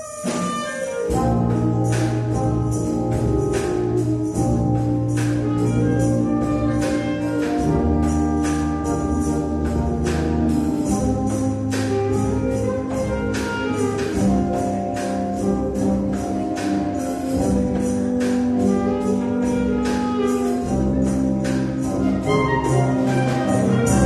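Concert wind band playing: clarinets and brass, with a sousaphone on the bass line, hold sustained chords over a steady percussion beat. The band comes in loud about a second in, after a brief lull.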